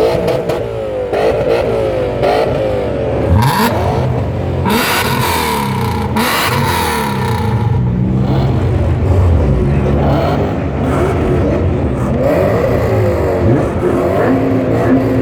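BMW E39 M5's 4.9-litre V8 with a decatted exhaust being revved in repeated blips, the pitch climbing and dropping back each time, loud throughout.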